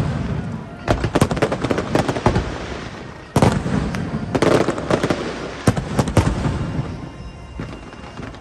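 Aerial fireworks shells bursting: deep booms at uneven intervals, the loudest about a second in and again around three and a half and four and a half seconds, with bursts of crackling between them.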